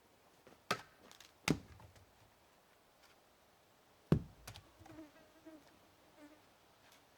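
Four sharp knocks, two of them with a dull thud, then an insect buzzing faintly with a wavering pitch for about a second and a half near the end.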